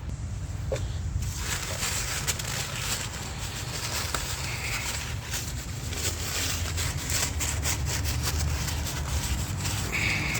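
Scrubbing and scraping in quick, irregular strokes as the PCV valve seat on the engine's valve cover is cleaned, starting about a second in, over a steady low hum.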